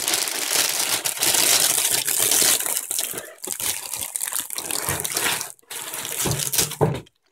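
Plastic packaging crinkling and rustling as a plastic-wrapped microfiber duster is handled and lifted out of a cardboard box, with a couple of brief breaks.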